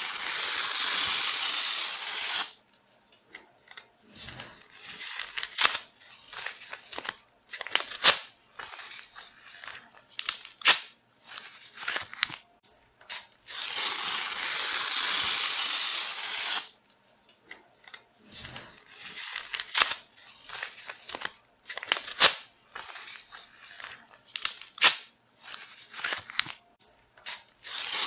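Paper being torn. Long, even rips of two to three seconds come at the start, about halfway through and again at the end. Between them are many short, jerky tears with sharp crackles.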